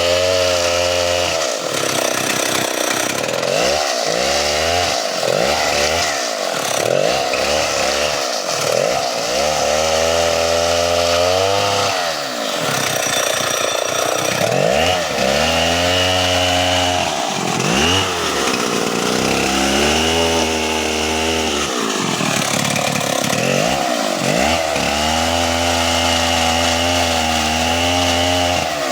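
Chainsaw cutting into a tree, its engine revving up and dropping back over and over, with several longer stretches held at high revs under load.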